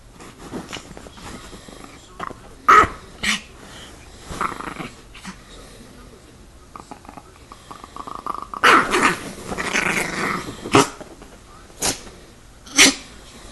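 Chihuahua growling as it attacks a person's hand, with several short sharp yaps scattered through and a longer stretch of continuous growling about two-thirds of the way in.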